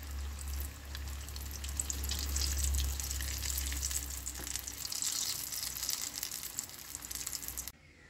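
Sausage cutlets shallow-frying in hot oil in a pan: a steady sizzle full of fine crackles, which cuts off suddenly near the end. A low hum sits under it for the first few seconds.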